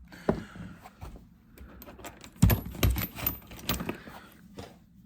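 Metal hand-tool sockets clinking and rattling against one another while being rummaged through in a box, a run of sharp clinks that is busiest and loudest between about two and a half and four seconds in.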